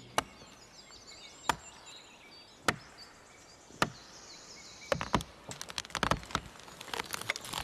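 Chopping: four sharp single blows a little over a second apart, then a quicker, irregular run of knocks in the second half.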